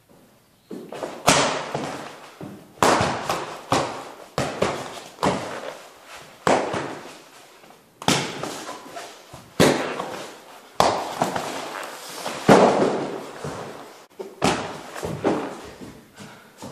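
Kicks and punches landing on a humanoid training dummy: more than a dozen sharp thuds, between half a second and two seconds apart, each ringing on in a reverberant hall.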